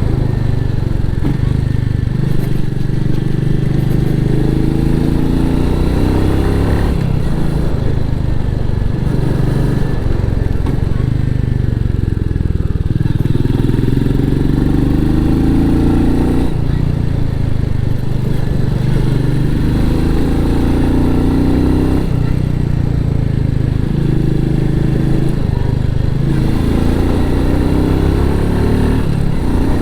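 Royal Enfield Meteor 350's single-cylinder engine running through its stock exhaust while riding, with the engine note rising and falling every few seconds as the throttle and gears change.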